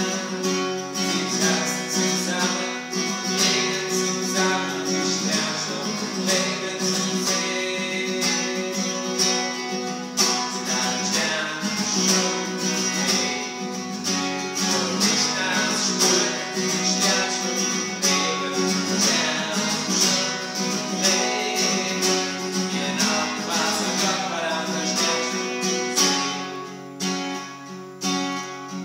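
Acoustic guitar strummed steadily, chord after chord, dropping briefly quieter near the end.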